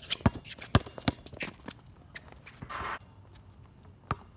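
Basketball dribbled hard on an outdoor court: three loud bounces in the first second or so and one more near the end. Between them come sneaker squeaks, scuffs and footsteps as two players drive toward the hoop, with a short hissing scrape about three seconds in.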